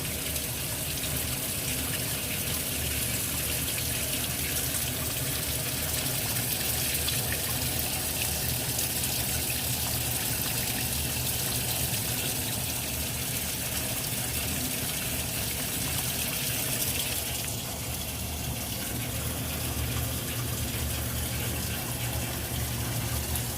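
Maytag A482 washing machine filling, with water gushing steadily into the tub over a low steady hum.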